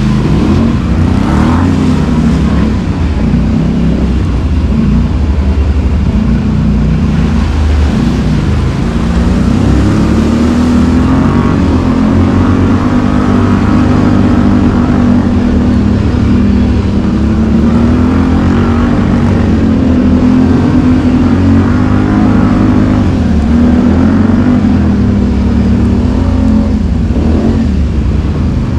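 ATV engine running continuously under changing throttle, its pitch rising and falling as the rider speeds up and eases off.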